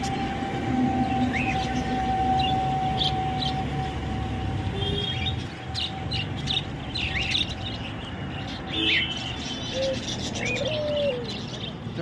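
Caged budgerigars chirping, short high calls scattered through, over a steady rumble of street traffic. A steady hum runs through about the first half.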